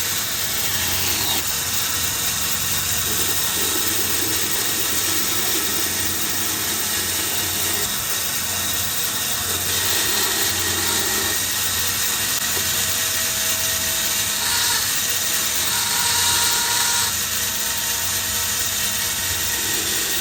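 An electric power tool running without a break, steady throughout.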